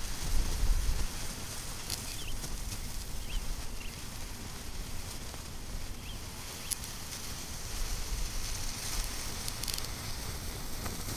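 Outdoor ambience: low wind rumble on the microphone, strongest in the first second, over a faint steady hiss, with a few soft ticks that could be from the small fire.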